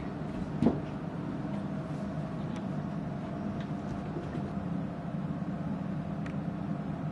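A steady low hum, with one sharp thump about half a second in and a few fainter knocks after it, from two cats wrestling and chasing on a carpeted floor.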